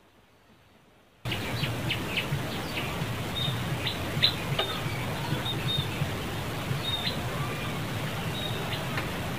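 Near silence, then about a second in outdoor background noise cuts in suddenly, with a low hum and many short, high chirps scattered through it.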